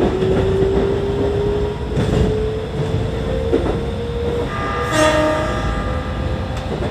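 Keikyu N1000 train with a Siemens GTO 'Doremifa' inverter: the traction motors whine with a slowly rising pitch as the train picks up speed, and the wheels knock over rail joints and points. A short horn-like tone sounds about five seconds in.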